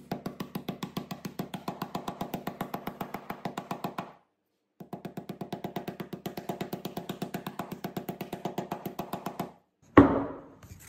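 Mallet tapping a laser-cut plywood panel down into its slots: a fast, even run of knocks, about five a second, with a ringing wooden tone. The tapping pauses briefly about four seconds in, then resumes, and a single louder knock follows near the end.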